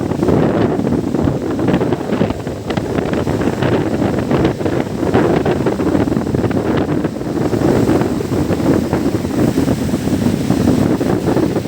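Wind buffeting the microphone at the seashore, with the wash of waves underneath.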